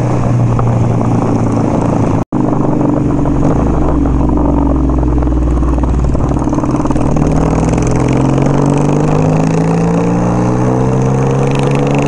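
1975 Kawasaki KZ400 parallel-twin motorcycle engine, heard from the rider's seat with wind noise. The engine's pitch sags as the bike slows through the first half, then rises steadily as it accelerates away. The sound cuts out for an instant about two seconds in.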